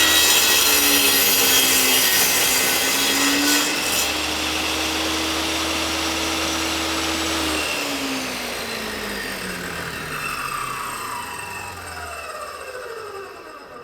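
Large electric table saw cutting wood for the first few seconds, its blade pitch sagging under the load. It then runs free, and about eight seconds in it is switched off, its whine falling steadily in pitch as the blade spins down.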